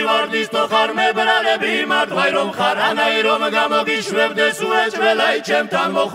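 Several voices singing an Adjarian (acharuli) folk song with no bass or drums underneath. A brief a cappella-like passage with wavering, sustained notes.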